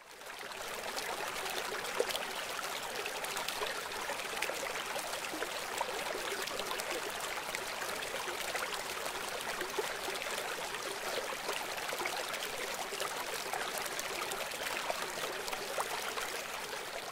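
Steady rushing, water-like noise like a flowing stream, fading in over the first second.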